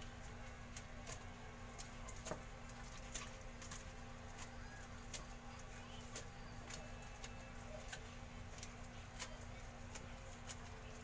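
Feathers being plucked by hand from a bantam chicken carcass: faint, irregular ticks and small tearing sounds over a steady low hum.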